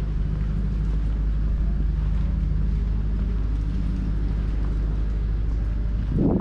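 Street traffic with a vehicle engine running steadily close by, a low hum, and a short loud thump a little before the end.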